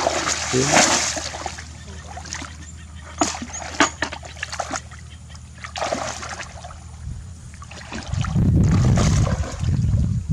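Water splashing and sloshing in irregular bursts, with a few sharp clicks, as someone works by hand in shallow water catching fish. A loud low rumble comes in near the end.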